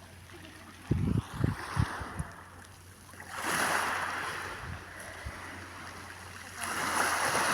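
Small sea waves washing onto the shore, two swells about three seconds apart. About a second in, a few short low thumps of wind buffeting the microphone.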